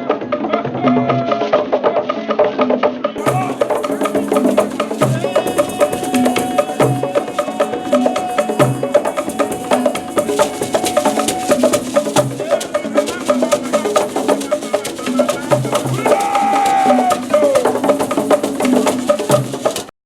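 Music with a steady percussion beat, drum hits and quick clicking percussion under held melody notes.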